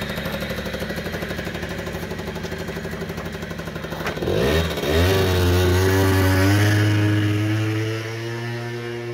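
Piaggio Quartz scooter's small two-stroke engine idling with a fast, even beat, just after a cold-weather start following long storage. About four seconds in, the throttle opens and the engine revs up, rising in pitch and getting louder. It holds at the higher revs and eases off slightly near the end.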